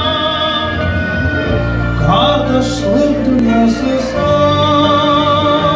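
Live Azerbaijani song played through a PA: a man singing long, wavering held notes into a microphone over electronic keyboard backing.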